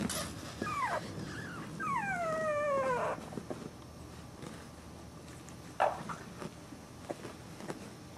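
Young boxer puppy whimpering: a short whine and then a longer one about a second long, each falling in pitch, in the first three seconds. A sharp knock at the very start and another about six seconds in.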